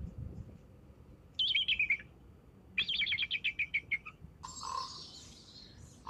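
Eagle calling: two bursts of rapid, high piping notes that fall in pitch, then a harsher screech about four and a half seconds in.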